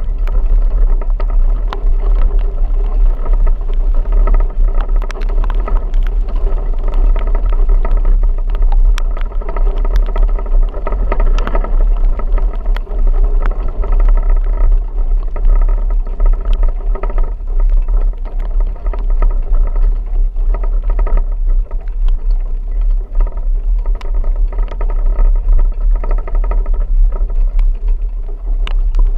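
Vehicle driving through a rainstorm: a heavy, continuous low rumble with steady engine tones above it and scattered sharp ticks throughout.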